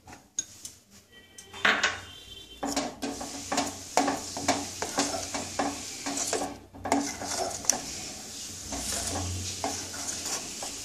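Steel spoon stirring thick firni in a stainless steel pan, starting about two seconds in: a quick run of scrapes and clinks of spoon against the pan's sides and bottom, with one brief ringing clink early on.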